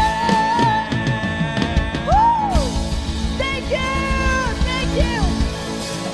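Live rock band playing through a stage PA: drum kit and acoustic guitar, with a woman singing. Her voice slides up and down about two seconds in, then holds long notes.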